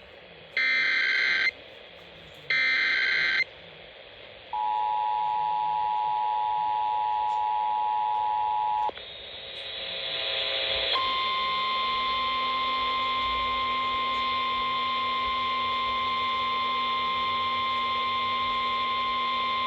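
Emergency Alert System tones over AM radio. First come two short bursts of screechy SAME header data. Then the two-tone attention signal plays steadily for about four seconds. After a brief rise of hiss, a single steady warning tone of about 1050 Hz, the NOAA Weather Radio alarm tone, sounds for about nine seconds.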